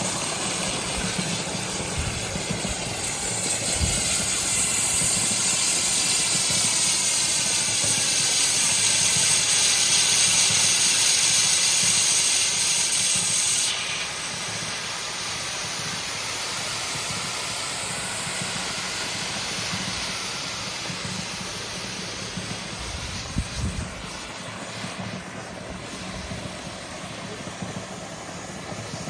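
Steam hissing out of the pipe nozzle of a homemade oil-drum boiler. The hiss is loud and steady, then drops abruptly to a softer hiss about halfway through, with a steady low hum underneath.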